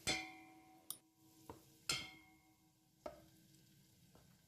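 Metal tongs tapping and clinking against a stainless steel mixing bowl while an onion ring is dipped in batter, about six taps with the bowl ringing briefly after each. The loudest taps come at the very start and about two seconds in.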